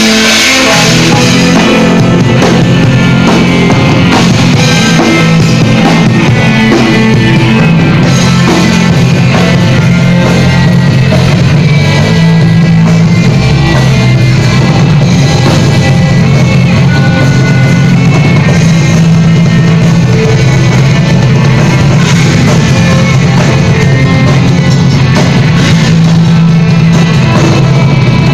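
Doom metal band playing live: electric guitars, bass guitar and drum kit together, loud and dense with a heavy low end.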